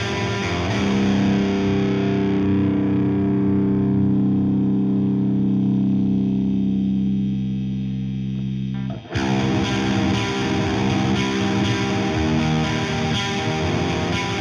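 Electric bass played through a blendable low-gain overdrive pedal with hard silicon clipping, sounding gritty and distorted. A note is struck and left to ring for about eight seconds, its bright edge fading, then it is cut off abruptly about nine seconds in and busier distorted playing starts again.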